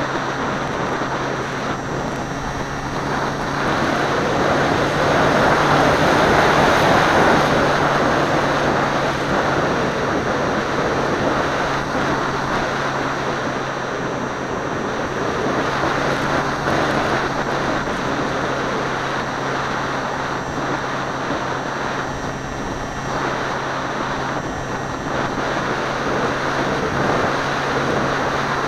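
Airflow rushing over a camera mounted on a Seawind model seaplane in flight, with the plane's motor and propeller droning steadily underneath. The rush swells for a few seconds near the start, then settles.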